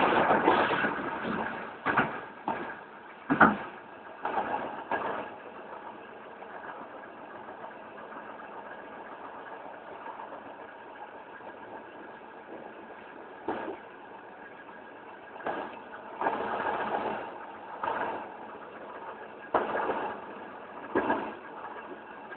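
Steady running noise of a Cisalpino passenger train, louder for the first second or so, with irregular knocks and clunks every few seconds. The sharpest knock comes about three and a half seconds in.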